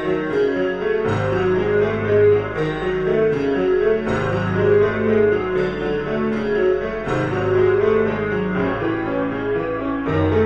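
Piano music: a busy run of short notes over held bass notes that change every second or two.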